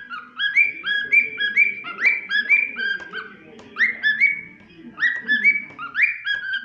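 Cockatiel whistling a run of short, repeated rising notes, about three a second, in bursts broken by brief pauses.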